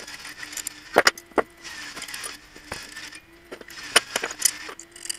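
Small steel parts (bolts, nuts, washers and a wrench) clinking and knocking as they are handled, with a few sharp clinks about a second in and again around four seconds. A faint steady hum runs underneath.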